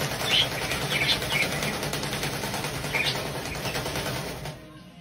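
A caged parrot making a few short, high-pitched calls over a steady background hum; the sound drops away near the end.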